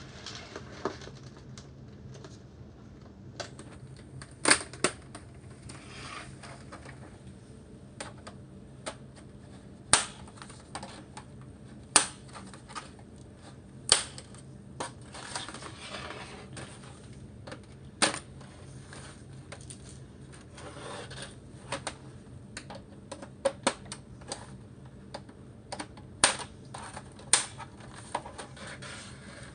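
Plastic snap latches of an LCD monitor's case clicking and popping as the case is pried apart, irregular sharp clicks with softer scraping between them. A steady low hum runs underneath.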